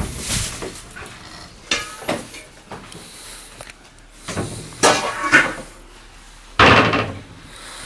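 Kitchen cupboard door and bowls: a few clatters and knocks as nested bowls are taken down from a tall cupboard, then the cupboard door is shut with a sharp knock, the loudest sound, near the end.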